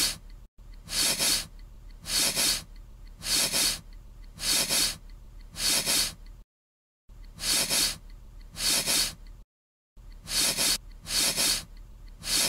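A short breathy, hissing noise repeated as a looped sound effect, about one burst every 1.2 seconds, eleven or so in all, with two abrupt dropouts to dead silence partway through.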